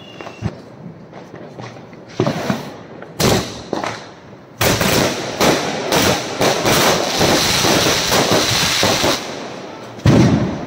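Firecrackers going off: a few separate bangs, then about four and a half seconds of rapid crackling with a hiss, then one loud bang near the end.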